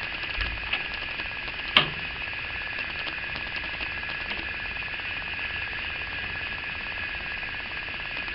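Brake lathe running steadily on its belt-and-pulley drive, a constant high whine over a mechanical hum, with a sharp click about two seconds in.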